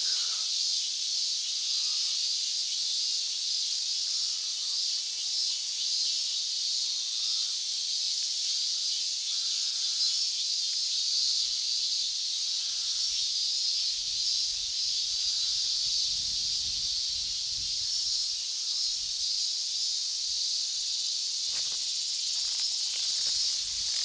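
Chorus of male cicadas (semi) giving their mating calls, a steady high-pitched buzzing hiss that does not let up.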